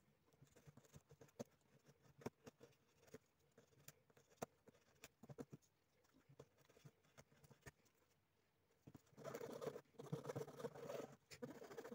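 A knife cutting and scraping a wine cork, with scattered light clicks, then from about nine seconds a file rasping against the cork in quick, louder strokes.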